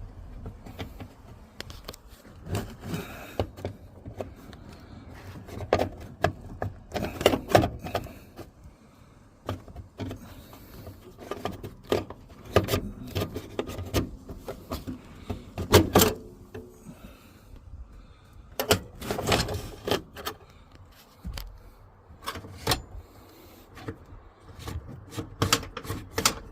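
Shifter cable being pulled out of a 2008 Chevy Express: irregular clicks, knocks and rubbing as the cable and its fittings are worked free, with a few louder clusters of knocks.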